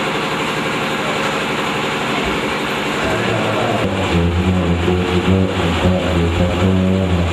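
Buddhist monks chanting through a microphone and loudspeaker. A deep voice comes in strongly about four seconds in, holding long, even notes over the other voices.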